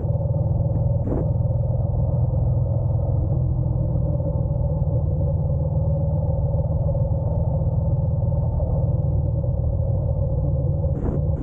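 Honda NC750X's parallel-twin engine running steadily with an even, unchanging note, with short gusts of wind noise about a second in and near the end.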